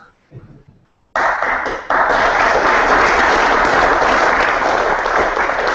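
An audience applauding after a talk, starting suddenly about a second in, heard over a video-call link.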